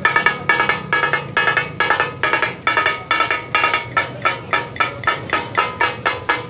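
Two flat steel blades chopping and clanging on a large iron tawa griddle in takatak cooking: a fast, rhythmic metallic clatter of about four to five ringing strikes a second.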